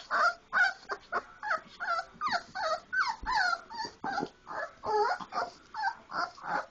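Four-week-old Labrador retriever puppies whining, in a quick string of short, high calls that bend up and down in pitch, several a second.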